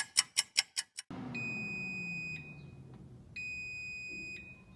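A clock ticks quickly, about five ticks a second, for the first second. Then a high electronic alarm rings twice, each ring about a second long and a second apart, signalling that the time is up.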